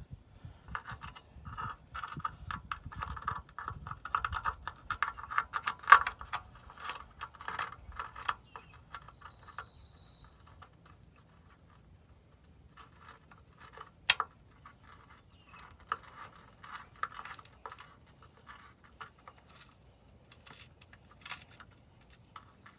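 Hand ratchet clicking rapidly in two long runs as bolts are turned in, with metal tool clatter and a sharp knock about six seconds in and another about fourteen seconds in. A brief high steady tone sounds about nine seconds in.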